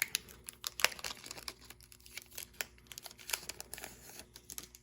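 A Pokémon booster pack's foil wrapper crinkling and trading cards being handled and shuffled, with irregular small crackles and clicks, busiest in the first second.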